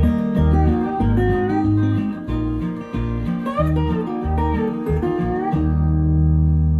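Guitar music with bass, played through 1979 B&W DM2 Mark II loudspeakers: plucked notes with bent, sliding pitches, then a long held chord about five and a half seconds in that rings on and slowly fades.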